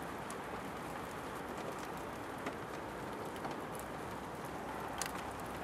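Steady rain falling: an even hiss with a few faint sharper ticks of drops.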